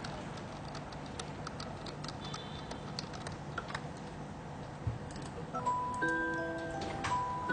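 Quiet background music: scattered light ticking clicks, then a light melody of short bell-like notes begins about five and a half seconds in.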